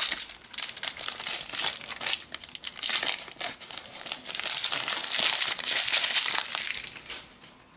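Foil wrapper of a Panini Adrenalyn XL trading-card booster pack being torn open and crinkled as the cards are pulled out, a dense crackling that dies away about a second before the end.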